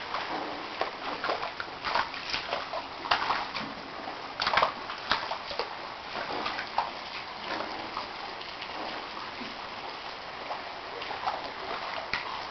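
Floodwater from an overflowing canal streaming along a road, a steady rush with irregular splashes, thickest in the first five seconds.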